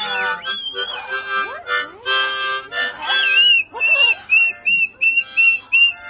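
Harmonica played in short breathy chord puffs, followed in the second half by a quick run of about seven short, high notes, each bending up and down.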